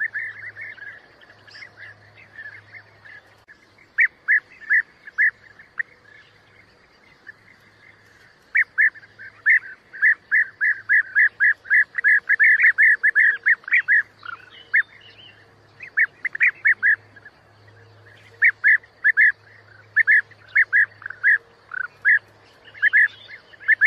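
European bee-eaters calling: short, repeated calls in quick runs, thickest in the middle stretch, with a lull of several seconds after the first second. A faint low hum runs beneath.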